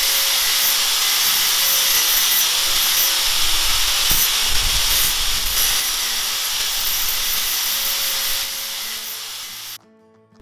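Makita 9553B 100 mm angle grinder, with a 710 W brushed motor, running steadily while its disc grinds the burrs off the cut end of a steel box tube, throwing sparks. The sound eases off near the end and then cuts out abruptly.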